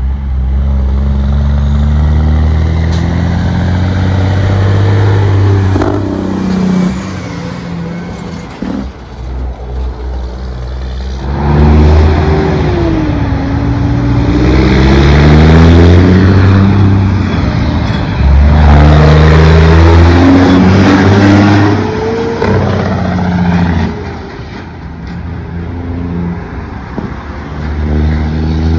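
Diesel semi-truck engine compression brakes (Jake brakes) firing in loud, steady, low bursts as trucks pass, in three long stretches, the pitch sliding as each truck goes by.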